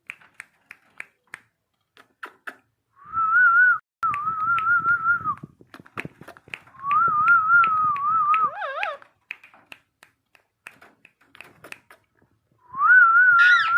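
A wavering whistle near one pitch, held for a second or so at a time and repeated several times. Sharp clicks fall in the gaps between the whistles.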